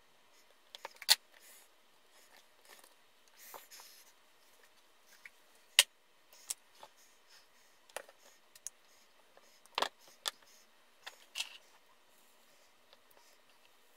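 Scattered sharp clicks and clacks of metal hand tools, pliers and a soldering iron, being picked up, handled and set down on a wooden workbench, about a dozen knocks with the loudest about one second in, near six seconds and near ten seconds.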